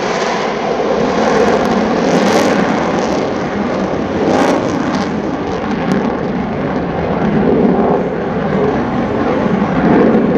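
Jet noise from an EA-18G Growler's twin General Electric F414 turbofans as the jet banks away overhead: loud and steady with slow swells, losing its high end over the second half as the jet draws off.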